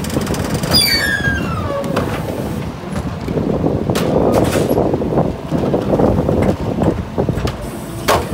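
Rear-loader garbage truck's hydraulic cart tippers lifting and dumping trash carts into the hopper over the running engine. A falling squeal comes about a second in, then trash rattles out of the carts, with sharp bangs of carts knocking against the tipper, one near the end.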